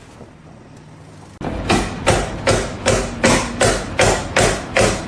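A quiet start, then about a second and a half in a steady low rumble begins, and about nine evenly spaced strikes follow, a little under three a second, like rapid hammering.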